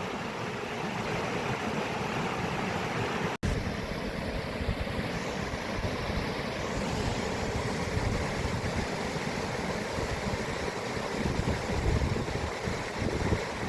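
Steady rushing water with wind buffeting the microphone in an uneven low rumble. The sound drops out for an instant about three and a half seconds in.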